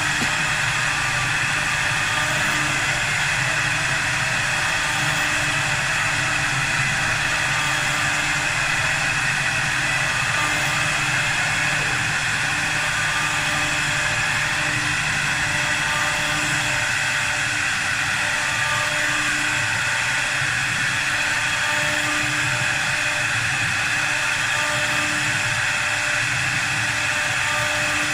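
4-axis CNC wood lathe running while it turns a wooden sofa leg: a steady, unbroken machine noise with a few held tones and a faint tone that comes and goes.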